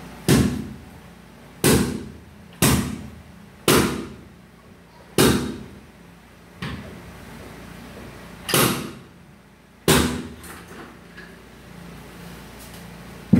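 Heavy metal-on-metal knocks as automatic-transmission parts are struck and knocked apart on the workbench: about eight blows spaced one to three seconds apart, each ringing out briefly.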